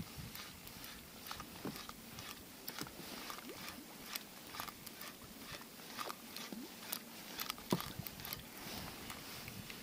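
Irregular light clicks and ticks, a few each second with a louder knock near the end, from fishing tackle being worked in an inflatable boat while a lure is retrieved.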